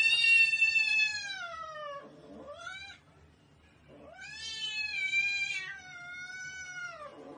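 A cat yowling in long, drawn-out meows: a long call that falls in pitch as it ends, a short rising call, then another long call.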